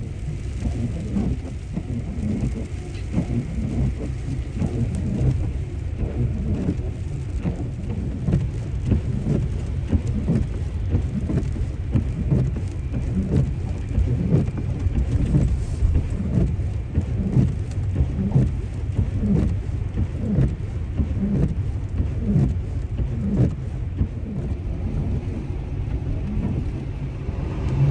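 Steady low rumble of tyre and road noise inside a Tesla Model X driving on a snow-covered highway, broken by many irregular low thuds.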